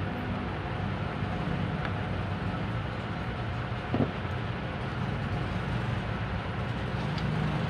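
An engine running steadily with a low, even rumble, and a single knock about four seconds in.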